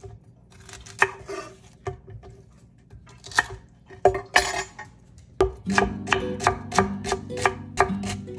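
Chef's knife cutting celery on a wooden cutting board: a few scrapes and crisp cuts as the stalk is trimmed, then from about halfway steady chopping at about three to four strokes a second. Soft background music with held notes comes in at the same point.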